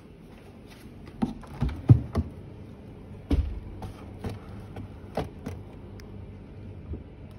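A series of irregular knocks and taps, loudest in a cluster around two seconds in, over a faint steady low hum.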